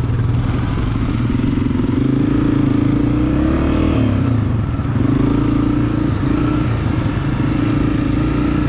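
Dirt bike engine running as the bike rides along, its pitch rising a little and then dropping back about four seconds in, then holding steady.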